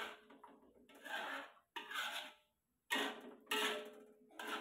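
A cooking utensil stirring and scraping a metal wok of fish curry, in short strokes about once a second, five or six in all.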